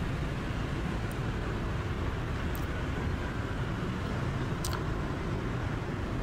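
Steady road traffic noise heard while riding along a busy city street.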